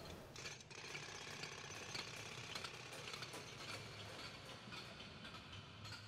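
Faint construction-site ambience: a dense, steady clatter of small metal taps and clinks over a low rumble.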